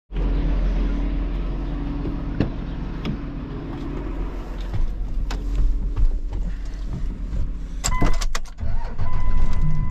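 Vehicle engine idling steadily, with a few clicks and knocks of handling. A steady high beep tone comes on about eight seconds in and holds.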